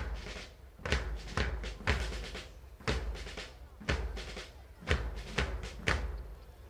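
Military band drums beating a march cadence: a heavy bass drum stroke about once a second, with lighter drum strokes between.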